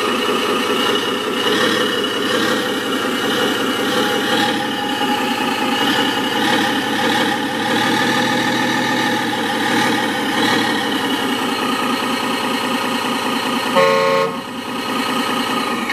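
An RC model pickup truck's sound module playing a simulated engine running steadily, with one short horn toot near the end.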